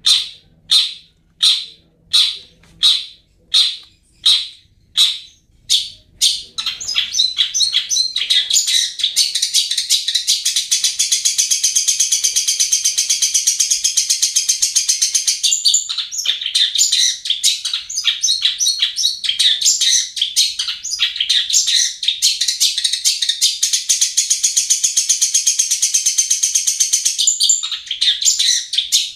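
Long-tailed shrike (cendet) calling: about ten loud, sharp, evenly spaced calls, roughly one and a half a second. It then breaks into a long, rapid, continuous high chattering song.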